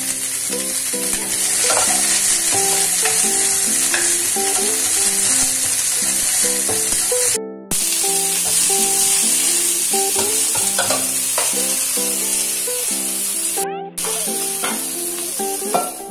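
Green beans sizzling as they are stir-fried in a nonstick wok, tossed and scraped with a wooden spatula. The sizzle cuts out briefly twice.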